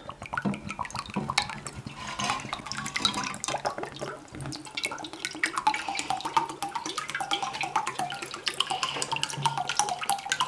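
Water trickling and dripping from a soaked terracotta chia pet figure into a pot of water as it is turned to drain, with many small irregular drips and splashes.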